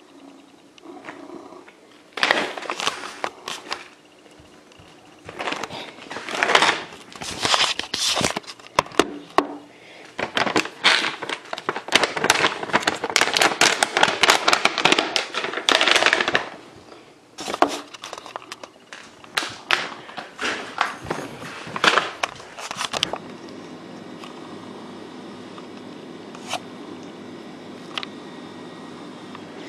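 A plastic bag of cat treats crinkling and rustling in irregular, crackly bursts. For the last several seconds, a brown tabby cat purring steadily and low, close to the microphone.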